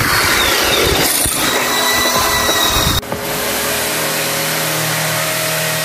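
Electric power tool running, its whine falling in pitch and then holding steady. About three seconds in the sound cuts off abruptly, giving way to a steadier, lower machine hum.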